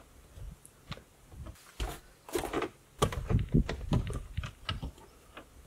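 Irregular knocks, clicks and low thuds of someone moving about and handling things in a small cabin, several close together in the second half.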